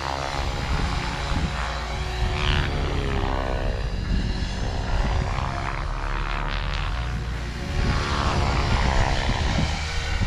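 Align T-Rex 500X electric RC helicopter in flight: a rotor and motor whine that rises and falls in pitch as the heli swings back and forth through its turns.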